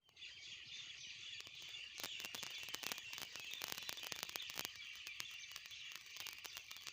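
A flock of small birds chirping all at once, a dense, overlapping chatter of short high chirps that grows busier about two seconds in.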